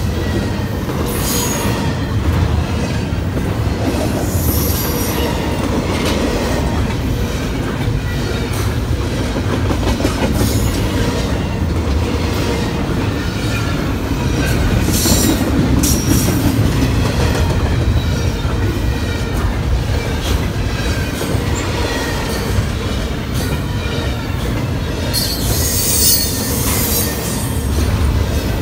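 Canadian National double-stack container train rolling past close by: a steady low rumble of well-car wheels on the rails, with brief high wheel squeals every several seconds, the longest near the end.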